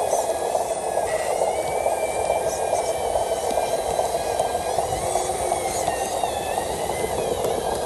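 RC dump truck's small electric drive motor and gearbox whining under load, the pitch rising and falling with the throttle, over a steady hiss, as the truck is stuck with its wheels spinning in wet mud.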